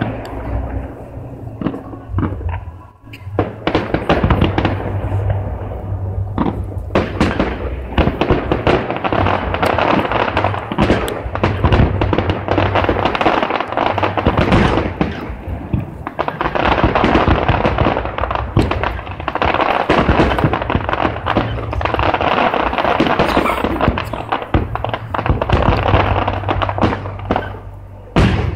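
Aerial fireworks display: a rapid, near-continuous string of shell bursts, bangs and crackles, easing off briefly about three seconds in and again near the end. Music plays underneath.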